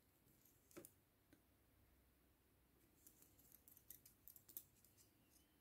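Faint clicks of metal double-pointed knitting needles touching one another as stitches are picked up. A couple of single ticks come first, then a quicker run of small clicks from about three seconds in.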